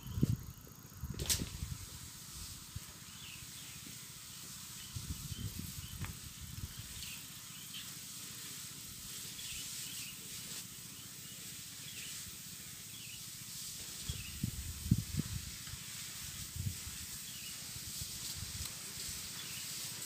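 Steady hiss of a weed-spraying lance fed by a motorized power sprayer, with small chirps repeating about once a second and a few low gusts of wind on the microphone. A single sharp click comes about a second in.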